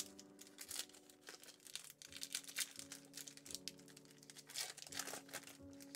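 Crinkling of a Yu-Gi-Oh booster pack's foil wrapper as it is handled and torn open: a scattered run of short, sharp crackles.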